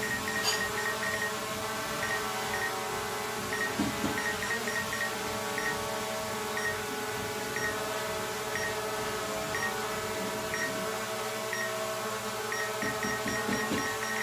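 Small quadcopter drone's propellers running with a steady, even hum, with faint short ticks about once a second.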